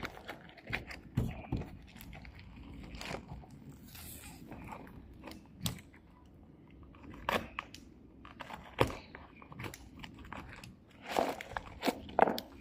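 Irregular crackling, clicks and taps of packaging being handled and opened, loudest near the end.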